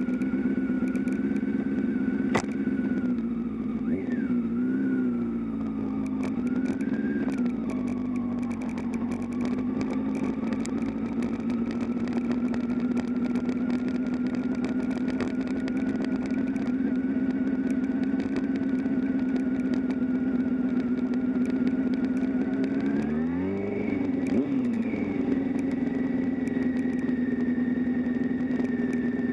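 Motorcycle engine running at a steady pitch, with brief rises and dips in revs about four to seven seconds in and a quick rise and fall around twenty-four seconds in.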